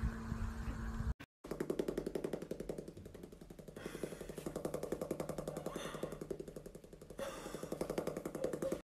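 An old dog making a rapid rattling sound of many pulses a second, starting about a second and a half in and running on with a steady low undertone.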